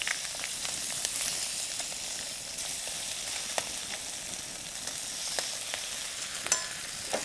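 Bacon and eggs frying in hot fat in a pan over a wood fire: a steady sizzling hiss with scattered small pops.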